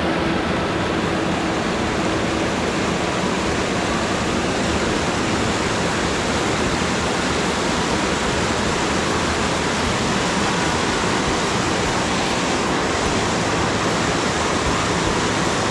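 Mountain stream rushing over small cascades between boulders: a steady, loud rush of white water.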